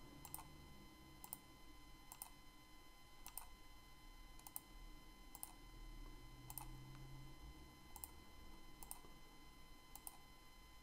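Faint computer mouse clicks, about a dozen spaced roughly a second apart, over a faint steady electrical hum.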